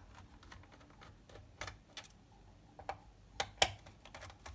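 Scattered light plastic clicks and snaps as the bottom service cover of an Acer Aspire F5-573 laptop is pried loose by hand and with a thin tool, the loudest snap about three and a half seconds in.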